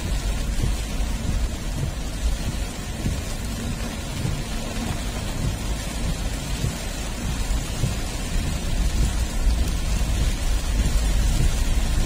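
Heavy rain falling, with a steady deep rumble underneath.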